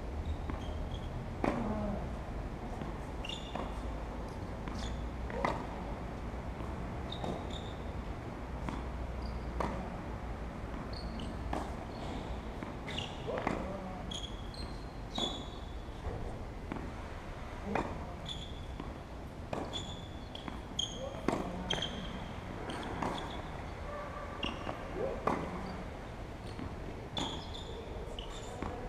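Tennis rally: racket strikes and ball bounces, a sharp pop about every two seconds, with short high chirps between the hits.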